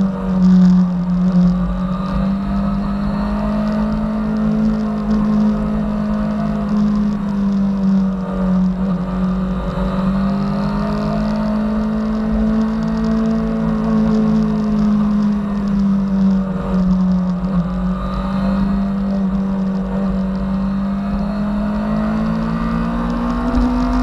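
Suzuki GSX-R750 K9's inline-four engine running steadily at cruising revs, heard from on board the bike. Its pitch eases gently up and down and climbs near the end as the bike gains speed, over a low wind rumble.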